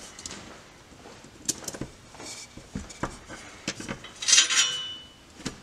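Small metal clinks and taps as a bolt and steel washers are fitted through a driveshaft carrier, then a louder burst of quick ratchet-wrench clicks a little past four seconds in.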